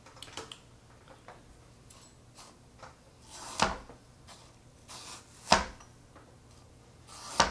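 Knife cutting fruit: three chops about two seconds apart, each a short rising cut ending in a sharp knock, with small clicks of handling in between.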